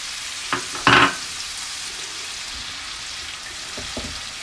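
Onion-and-spice masala with freshly added tomato pieces sizzling in oil in a wok while a wooden spoon stirs it, scraping and knocking against the pan. One loud knock about a second in, with a few lighter knocks near the end.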